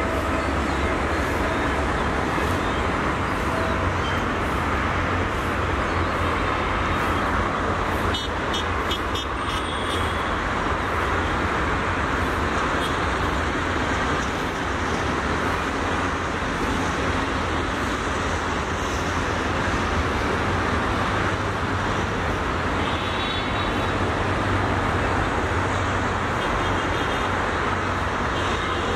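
Steady distant engine and vehicle rumble, even in level throughout, with a few faint high chirps now and then.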